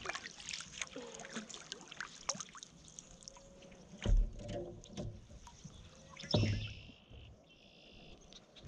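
Water splashing and dripping around a canoe, with many small splashes and two dull thumps, about four and six and a half seconds in.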